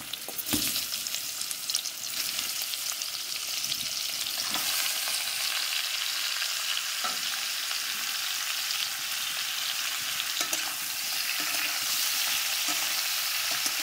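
Boiled jackfruit pieces frying in hot mustard oil in a kadhai: a steady sizzle that grows a little louder a few seconds in, with a few soft knocks.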